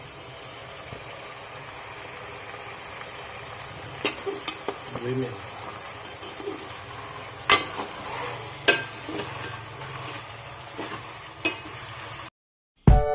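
Food sizzling in a pan, with a utensil knocking and clinking against it several times. The sizzle cuts off near the end and music begins.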